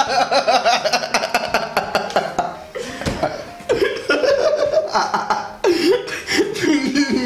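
A man laughing hard and loudly into a microphone, in long fits of quick, repeated ha-ha pulses, with a short break about three seconds in before the laughter picks up again.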